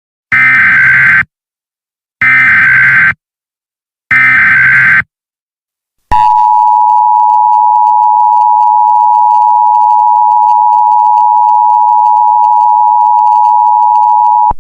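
Emergency Alert System activation. It opens with three one-second bursts of harsh, warbling digital data, the SAME header. From about six seconds in comes the steady two-tone EAS attention signal (853 and 960 Hz sounding together), which announces that an emergency message follows.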